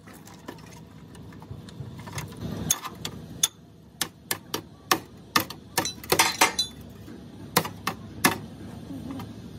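Hammer blows on a wooden block held against the crumpled front inner-fender sheet metal of a crash-damaged car, knocking the dent back out. About a dozen sharp, irregular knocks with a short metallic ring, with a quick flurry a little past the middle.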